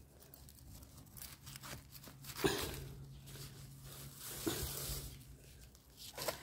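Leafy wild greens rustling and tearing as they are picked by hand, with two sharper snatches about two and a half and four and a half seconds in.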